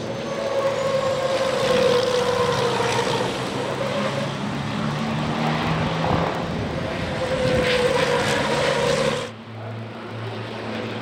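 Racing trucks' turbo-diesel engines running hard as the trucks race past on the circuit, the engine note sliding in pitch as they go by. About nine seconds in the sound changes abruptly to a quieter engine note.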